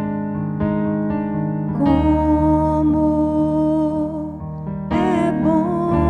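Piano playing slow sustained chords, with a woman's voice joining about two seconds in and singing long held notes with vibrato, growing stronger near the end.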